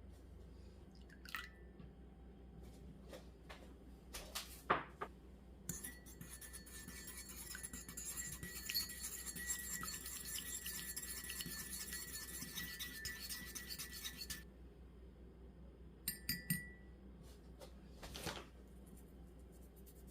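Fast whisking of batter in a bowl, a steady scratchy churning that lasts about eight seconds, with a faint ring from the bowl. Knocks and clinks of utensils against the bowl come before and after it.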